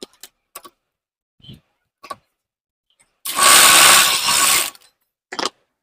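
A few light metal clicks as a socket is set on the clutch centre nut, then an electric impact wrench runs for about a second and a half, tightening the nut; one more click near the end.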